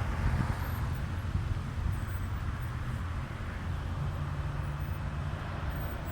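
Road traffic noise: a steady low engine rumble, with the hiss of a passing vehicle fading over the first second or so.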